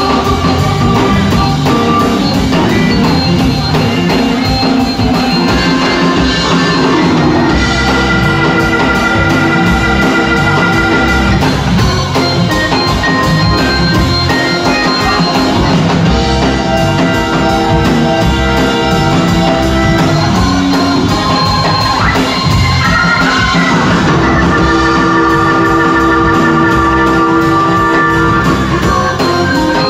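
Live organ-and-drums music, loud throughout: a keyboard organ holds long sustained chords over a drum kit.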